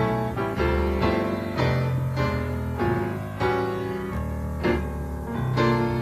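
Jazz-fusion band jam: electric bass holding deep notes under keyboard chords, with sharp accented hits.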